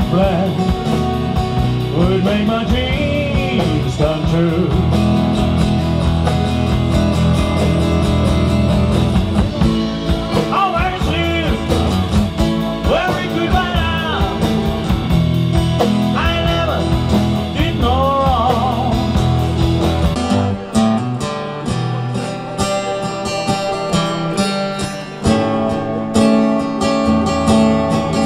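Live country band playing: guitars, double bass and drums under a gliding melody line. About two-thirds of the way in, the sound thins out to a sparer guitar part with little bass, and the fuller sound comes back near the end.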